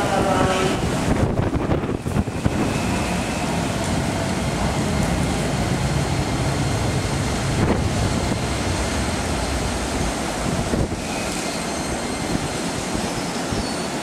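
Steady rumble at a railway platform from a standing Keikyu New 1000 series electric train, with some wind noise on the microphone.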